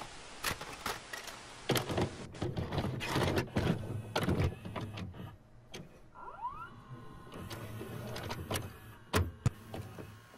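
A videotape cassette mechanism loading and starting to play. Clicks and clunks of the cassette going in come first. About six seconds in, a motor whirs up in a rising whine and settles into a steady hum, and two sharp clicks come near the end.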